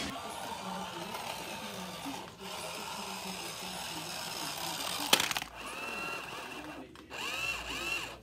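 Small electric motor of a toy remote-control car whining as it drives across a hard kitchen floor, with a single sharp knock about five seconds in.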